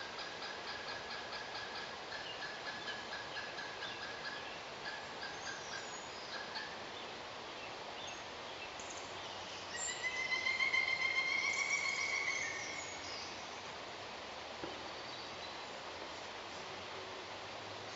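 Pileated woodpecker calling: a long run of quick, evenly repeated notes, then a louder, slightly higher run about ten seconds in.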